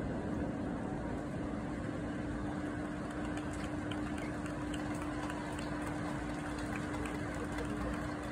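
A steady mechanical hum over an even rushing noise, with a few faint crackles in the second half.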